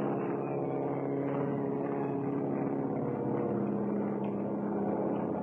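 Propeller aircraft engine droning steadily, a continuous pulsing engine note.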